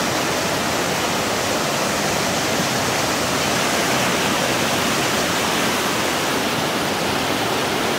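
Muddy floodwater rushing and churning over a concrete dam crossing: a steady, loud, unbroken wash of water noise.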